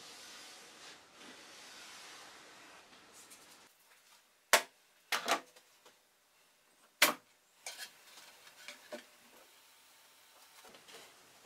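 A wooden board and clamps being handled on a workbench: faint rubbing at first, then a handful of sharp wooden knocks and clacks, the loudest about four and a half and seven seconds in.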